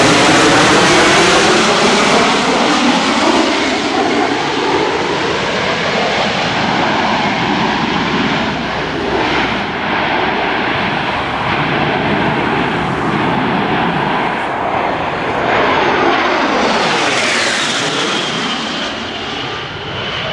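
A USMC AV-8B Harrier's jet engine, loud, steady jet noise as it passes overhead and then carries on farther off, easing slightly after the first few seconds. A car drives past close by partway through.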